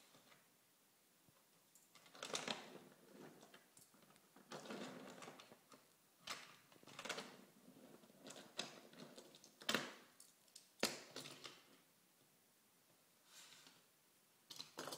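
Wooden toy trains being pushed by hand along wooden track: intermittent rolling rattles and light clacks and knocks of wood on wood, in several short spurts with quiet gaps between.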